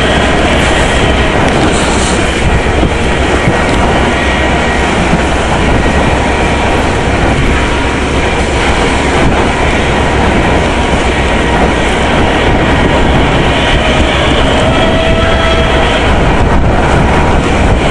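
Loud, steady mechanical din with faint thin squealing tones now and then.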